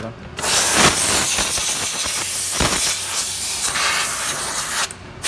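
Cleaning product sprayed under pressure onto fabric in a long continuous hiss, which stops briefly near the end and starts again.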